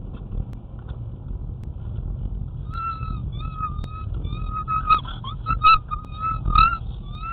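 Short high-pitched honks repeated over a steady low rumble, starting a few seconds in, with three sharp knocks in the second half.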